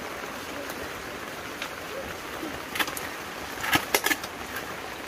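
Steady hiss of heavy rain, with a few sharp knocks and scrapes of a shovel and a digging bar striking into wet, muddy soil, the loudest cluster a little under four seconds in.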